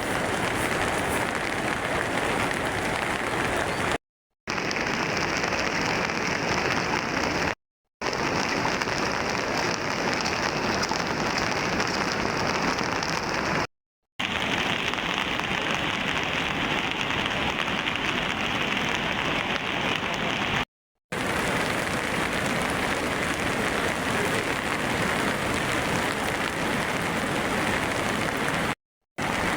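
Heavy rain falling, a steady hiss. It is broken into several stretches by brief moments of complete silence, about every few seconds.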